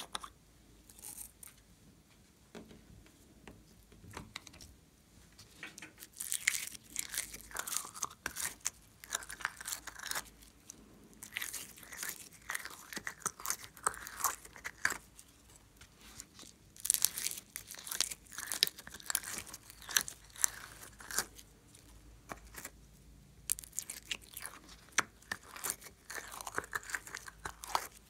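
Slime being scooped and squeezed by hand, with sticky crackling and popping in dense runs of small clicks. It is sparse for the first few seconds, then thick and steady.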